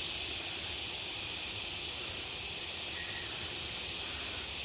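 Steady, unbroken chorus of forest insects, a high continuous hiss over a low rumble.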